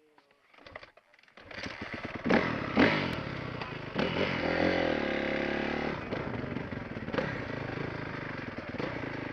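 Dirt bike engine starting about a second and a half in, revved sharply twice, then running steadily.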